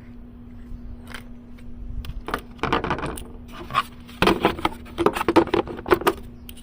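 Small clicks, scrapes and rattles of a replacement blade fuse being fitted into the car's fuse box, in two bursts, over a faint steady hum.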